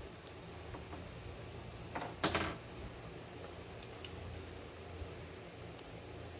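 Metal starter-motor parts clinking and rattling briefly as they are handled and fitted together, a short cluster about two seconds in, with a few faint ticks after it. A low steady hum runs underneath.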